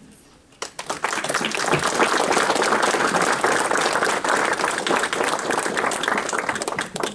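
Audience applauding: the clapping starts about half a second in, holds steady, and stops near the end.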